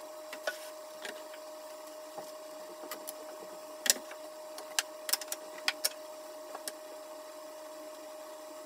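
Scattered light clicks and knocks, about a dozen, the loudest about four seconds in, as pieces of wood and drawer slide tracks are handled and set inside a plywood dresser carcass. A steady high hum runs underneath.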